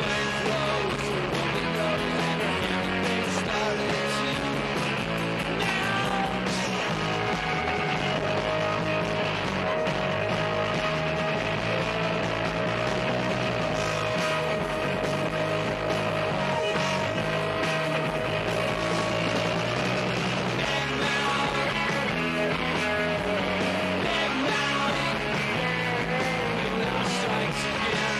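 Rock music with guitar. One note is held steadily for about twelve seconds in the middle.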